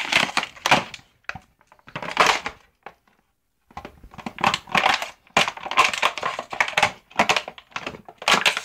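Empty plastic water bottle crackling and crunching as a dog bites and chews it, in bursts with a short pause about three seconds in.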